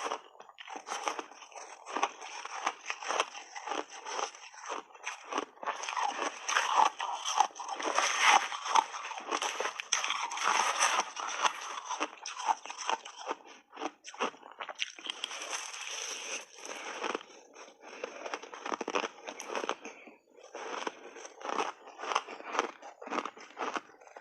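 Refrozen shaved ice being bitten and chewed in big bites: a dense run of sharp crunches, thickest through the middle and thinning to separate crunches near the end.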